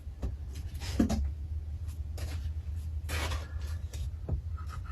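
Handling noise of guitar kit parts being unpacked from a box: scattered rustling and rubbing of packaging with a few light knocks, including a longer rustle about three seconds in, over a steady low hum.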